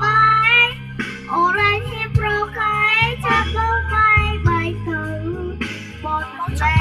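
A young girl singing a Khmer song into a handheld microphone over a backing track with a steady bass line.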